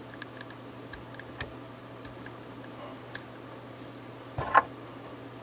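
Small plastic clicks and taps of a cheap handheld voice recorder being handled and its buttons pressed, just after it has powered up on fresh battery contacts. A louder short scrape-and-knock comes about four and a half seconds in, over a faint steady hum.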